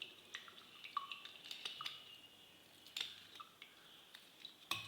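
Lemon being squeezed over a glass of hot water, faint drops of juice dripping in, with scattered small clicks and taps; a sharper tap about three seconds in and another near the end.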